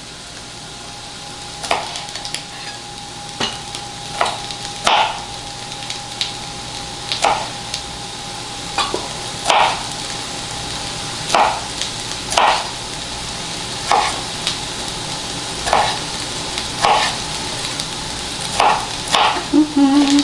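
Chef's knife chopping broccoli florets on a cutting board, a sharp knock roughly once a second, over a steady sizzle of vegetables frying in oil in a skillet.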